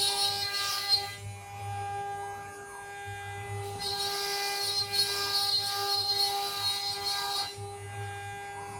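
CNC router spindle whining steadily while cutting a partition panel, with a harsher, hissier cutting noise that comes and goes as the bit works through the material, from the start to about a second in and again from about four to seven and a half seconds.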